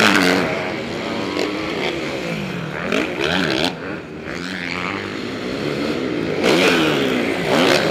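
Several motocross bikes racing past, their engines revving up and down with pitches rising and falling over one another. They are loudest at the start and again from about six and a half seconds in.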